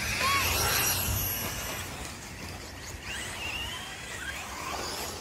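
Electric RC buggy driving around a dirt track, its motor whining in short rises and falls over a steady hiss.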